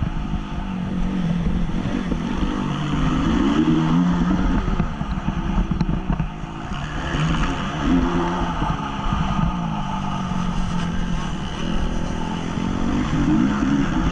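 Honda CRF250 motocross bike's single-cylinder four-stroke engine under hard riding, its pitch repeatedly climbing and dropping as the throttle is opened and closed through the gears.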